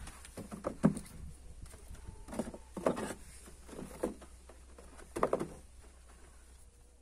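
Apples being set by hand into a cardboard box, knocking against the apples already packed and the box: several knocks at uneven intervals.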